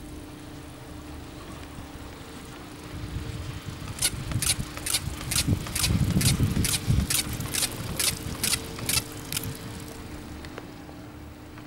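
Grip of a Doppelmayr quad chairlift's chair running over a tower's sheave train: about a dozen sharp clacks, roughly two a second, with a heavier rumble midway, over a steady hum from the lift.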